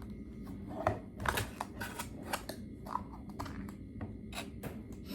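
Scattered small clicks and smacks of eating: boneless fried chicken being handled, dipped in a sauce cup and bitten, with the loudest clicks about a second in.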